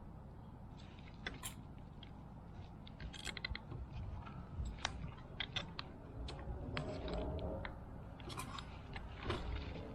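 Irregular light clicks, taps and small rattles of hand work on a fuel pump assembly as it is taken apart, coming more often after the first few seconds.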